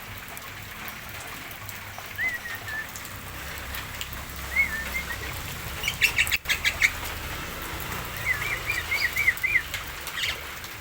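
Javan myna calling: short wavy whistled notes, a quick burst of rattling notes about six seconds in, then a fast run of repeated wavy whistles near the end.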